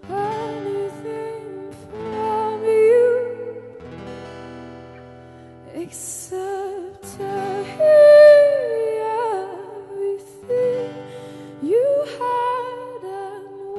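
A woman singing a slow, wavering melody, live, over soft held chords from the band.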